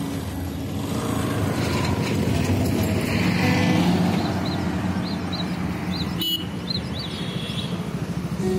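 A large coach bus drives past close by, its engine and tyre noise swelling to a peak about four seconds in and then easing off, over steady road traffic. Faint high chirps come and go in the second half, and there is a sharp click about six seconds in.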